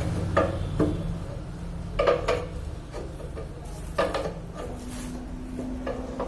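Sharp metallic clinks in pairs about every two seconds, over a low hum that fades about a second in.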